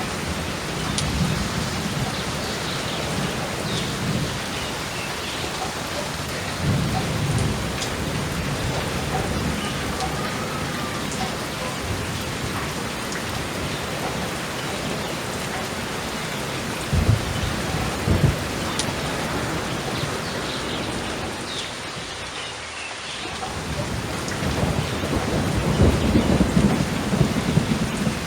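Thunderstorm: steady heavy rain with rolling thunder. Two sharp thunderclaps come a little past halfway, and a long, louder rumble builds near the end.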